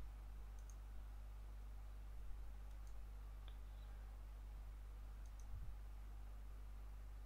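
A handful of faint, scattered computer mouse clicks over a steady low electrical hum.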